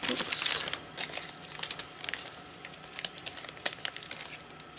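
Clear plastic zip bags holding artist trading cards crinkling and rustling as they are handled, with scattered small crackles and clicks.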